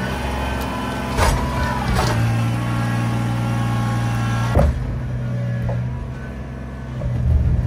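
Kubota BX23S compact tractor's three-cylinder diesel engine running steadily while it shoves a junk fiberglass boat hull across the grass. Sharp knocks come from the boat about a second in, again at two seconds, and loudest at about four and a half seconds.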